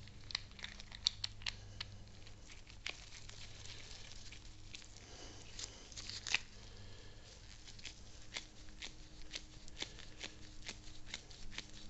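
Faint, irregular clicks and light scraping from small metal parts being handled and threaded together: the end piece of a Volvo Penta 290 outdrive's mechanical tilt assembly being screwed into the bottom of the unit. A faint steady low hum sits underneath.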